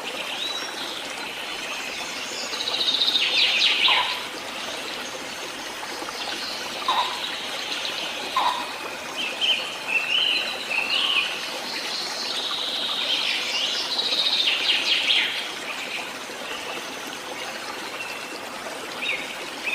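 Birds chirping and trilling, in short repeated phrases with denser bursts of song about three seconds in and again near the middle, over a steady hiss of running water.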